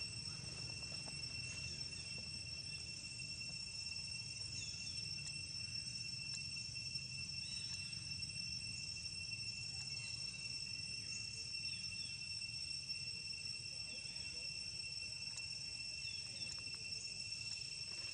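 Steady, high-pitched drone of insects in the forest, unbroken throughout, with brief chirps now and then over a low rumble.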